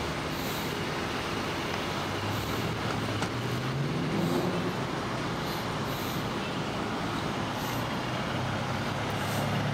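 Steady engine and traffic noise from motor vehicles, with one engine's pitch rising briefly about four seconds in.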